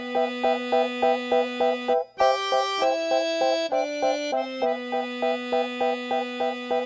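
Instrumental background music: short repeated chords, about four a second, over held bass notes that change pitch, with a brief break about two seconds in.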